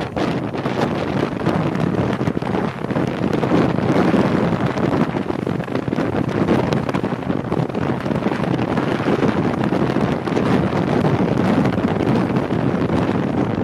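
Wind rushing and buffeting over the microphone on a rigid-hull inflatable boat under way, with the boat's engine and water rushing past the hull mixed in underneath. The noise is loud and steady, swelling and easing slightly.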